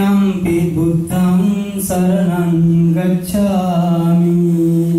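A man chanting a Buddhist devotional chant in four long, drawn-out phrases at a nearly steady pitch.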